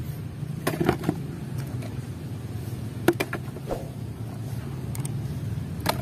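Mud-covered plastic toys knocking against a concrete floor as they are picked up and set down, a few sharp clicks about a second in, around three seconds in and near the end, over a steady low hum.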